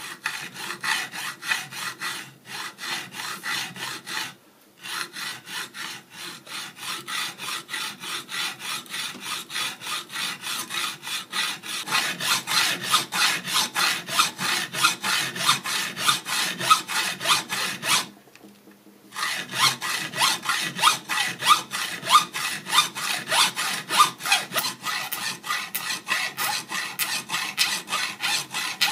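Hand hacksaw cutting through the aluminium rail of a DRO glass scale clamped in a vice: steady back-and-forth strokes, pausing briefly about four seconds in and again about eighteen seconds in, and growing louder from about twelve seconds in.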